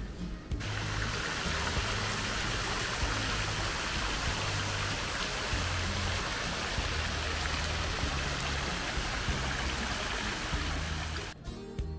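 Steady rushing of water, an even hiss that cuts in about half a second in and cuts off abruptly near the end, over quiet background music.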